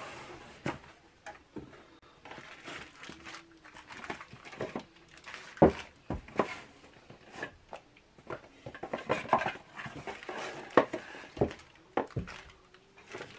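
A cardboard box of pistons being unpacked: cardboard flaps and plastic wrap rustle while the plastic-wrapped forged pistons are lifted out and set down on a tabletop with scattered knocks.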